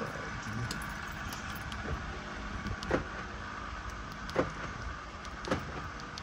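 Steady fan hum inside a car, broken by three sharp clicks and knocks as parts and hardware are handled.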